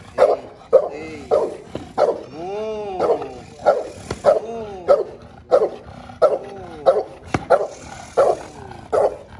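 Pitbull barking over and over, roughly one to two barks a second, mixed with several drawn-out whining calls that rise and fall in pitch. This is the dog worked up at a helper with a bite sleeve during protection training.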